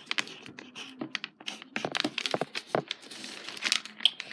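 Crinkling and crackling from things handled by hand: an irregular run of sharp crackles and rustles.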